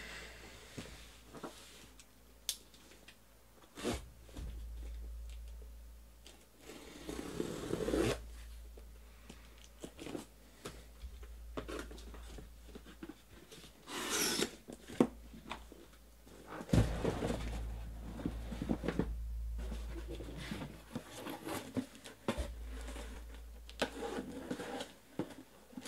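Cardboard shipping case being opened and emptied by hand: packing tape tearing, cardboard flaps rustling and scraping, with scattered knocks as the boxes inside are handled and set down. One longer tearing rasp stands out about halfway through.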